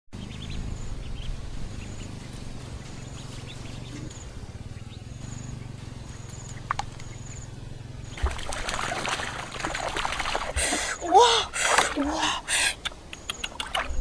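Water splashing and sloshing, starting about eight seconds in, over a low steady outdoor rumble with faint, evenly repeated high chirps. A few short rising-and-falling calls come in near the end.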